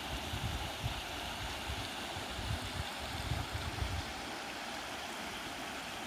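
Small rocky stream splashing over low cascades, a steady rushing hiss, with low gusts of wind buffeting the microphone that stop about four seconds in.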